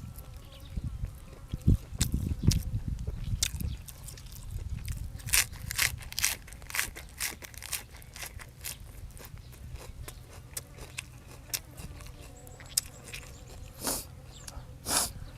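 A person chewing and crunching food close to the microphone: a run of sharp wet mouth clicks and crunches, with a few low thumps about two seconds in and two louder smacks near the end.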